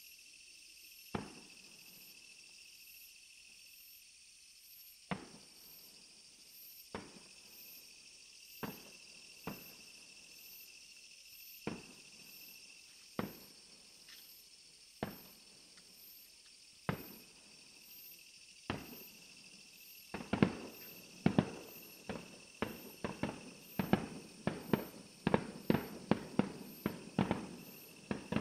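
Fireworks shells bursting, single bangs every second or two, then a rapid barrage of many louder bursts from about two-thirds of the way in. A faint steady chirring of insects runs underneath.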